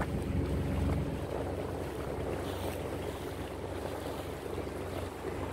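Motorboat engine running steadily, a low even hum, with wind noise on the microphone.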